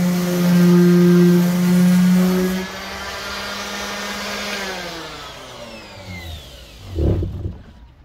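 Electric sander running steadily, then switched off about two and a half seconds in; its motor hum falls in pitch as it spins down over several seconds. A thump near the end.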